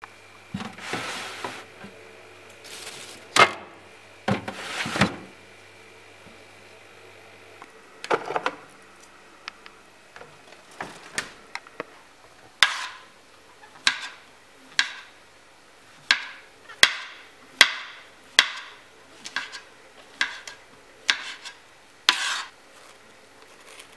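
Rustling and knocking as food is taken out of a refrigerator, over a faint low hum. Then a kitchen knife slices mushrooms on a wooden cutting board: a string of sharp knocks, roughly one a second, through the second half.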